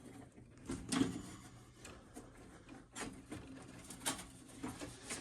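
Wire nuts being twisted onto spliced electrical wires and tugged: faint rubbing of plastic and copper with a handful of sharp clicks spread through.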